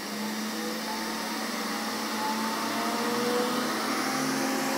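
Creality K1 3D printer's cooling fans running up to full speed during its self-check: a steady rushing whoosh with a hum under it, getting louder. Both the part-cooling blower fan and the other fan are going full speed.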